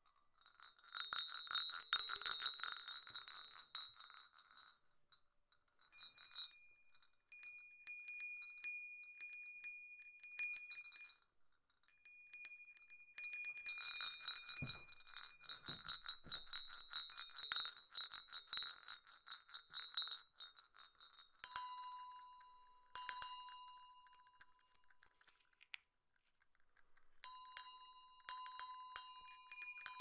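Jingle bells shaken in several bursts with short gaps between, a bright, dense metallic jingling. From about twenty seconds in there are a few separate bell strikes, each ringing on with a steady tone.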